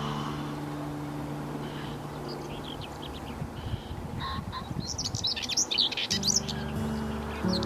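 Small songbird chirping, with quick runs of short high notes that grow busiest about four and a half to six and a half seconds in. Soft background music of sustained low notes fades out early on and comes back about six seconds in.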